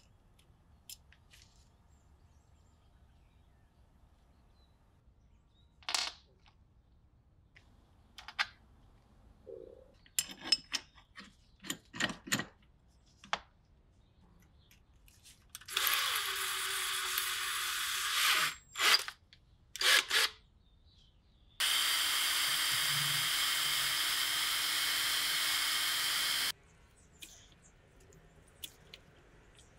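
Electric drill running twice, first for about two and a half seconds and then for about five, drilling into a hoof knife's metal handle liner clamped in a vise. Sharp metallic clicks and knocks from parts being handled come before and between the two runs.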